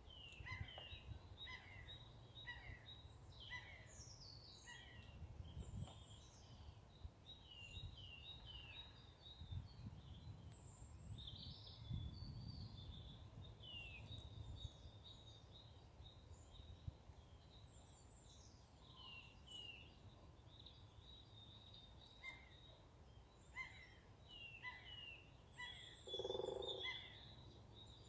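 Faint woodland birdsong: several small birds chirping and whistling in short phrases over a low rumble, with a brief lower-pitched call about two seconds before the end.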